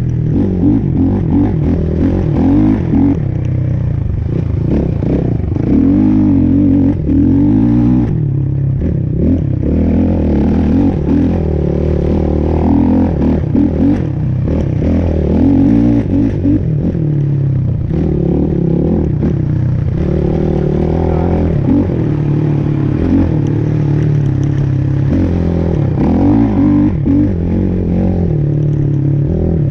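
A motor vehicle's engine running under way, its pitch rising and falling every few seconds as it revs up and eases off.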